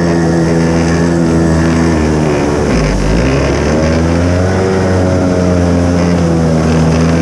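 Kawasaki JS300 stand-up jet ski's two-stroke engine running at speed, its pitch dropping sharply about two and a half seconds in and climbing back a second later, over rushing water from the hull.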